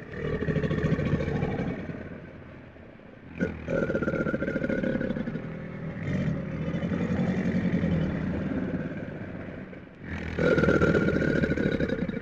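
Alligator bellowing: three long, deep, rough growls, the middle one the longest, with a sharp click about three and a half seconds in.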